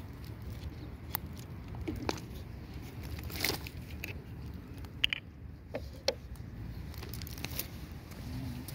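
Footsteps crunching on loose pebble gravel, with scattered irregular clicks of stones knocking together over a steady low rumble.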